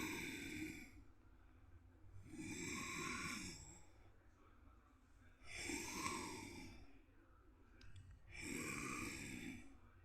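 A person breathing close to the microphone: four long, breathy swells about three seconds apart, with quiet between them.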